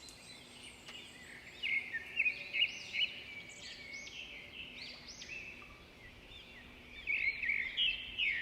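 Small birds chirping: many short, arching chirps overlapping, busiest about two seconds in and again near the end.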